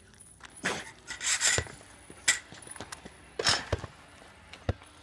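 Irregular scuffing and rubbing noises, a sharp click and a few dull thumps.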